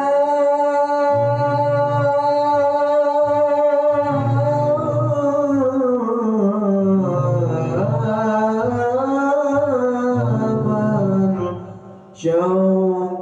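A man singing sholawat, an Islamic devotional song, in long drawn-out melismatic phrases with slowly bending held notes. The line fades out about twelve seconds in, and a new phrase begins after a short breath.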